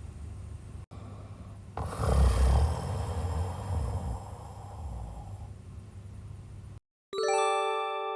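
A sleeper with sleep apnea snoring: one long snore starting about two seconds in and lasting a few seconds. Near the end, a bell-like chime rings and fades.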